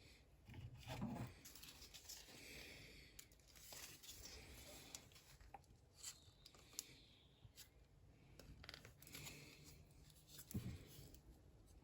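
Faint handling of a plastic fan part being bent and strained by hand: scattered clicks, scrapes and creaks, with a dull knock about a second in and another near the end.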